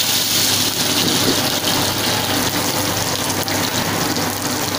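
Chopped shallots, garlic and red chillies sizzling in hot oil in a wok as they are stir-fried: a loud, steady, rain-like hiss with a faint low hum underneath.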